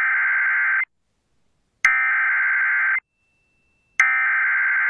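EAS/SAME digital header: a harsh, buzzy data-tone burst, sent three times, each about a second long with about a second's gap. It is the coded header that opens an emergency alert broadcast, here the tornado warning that follows.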